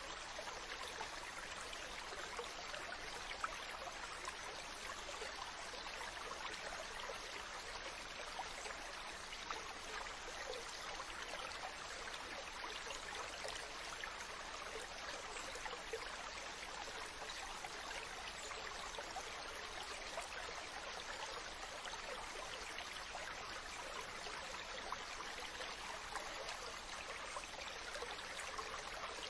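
Moving water making a steady, even trickling rush, with no separate wave surges.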